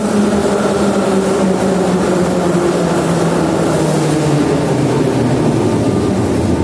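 81-717/714 metro train arriving and braking to a stop, its motor whine falling in pitch over the first four seconds or so above a steady rumble of wheels on rails. A few steady higher tones hold once it has stopped.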